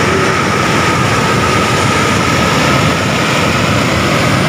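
Brown floodwater rushing and churning over a weir, a loud steady rush of white water.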